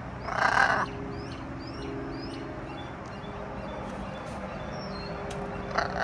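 A blue-and-gold macaw gives one loud, harsh squawk about half a second in, with a shorter harsh call near the end. Wild songbirds chirp softly in the background, in quick short notes.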